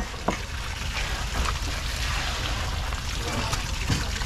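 Seawater splashing and running, with a steady low rumble underneath and a few faint knocks.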